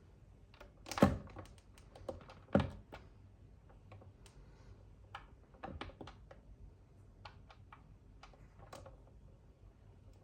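Irregular clicks and knocks, with two louder thumps about one and two and a half seconds in.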